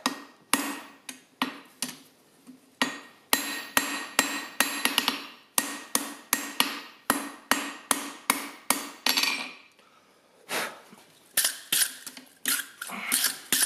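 Hammer striking red-hot steel on an anvil, about two to three blows a second, each with a ringing tone, to put an edge on a forged bottle opener. About a second after the hammering stops comes a few seconds of rough scrubbing as a wire brush is worked over the hot metal.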